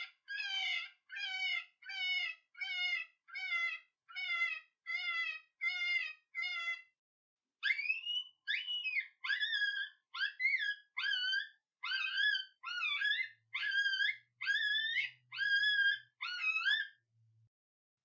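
Icotec GC300 electronic predator call playing a preloaded animal call through its speaker: a run of short, falling, mewing cries about one and a half a second, then after a brief pause about seven seconds in, a run of faster, more varied cries.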